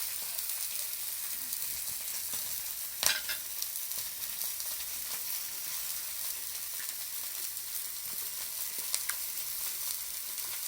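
Chicken skin and onions sizzling in rendered fat on a 9 mm thick iron griddle: a steady high hiss with the odd spitting tick, and one sharp pop about three seconds in.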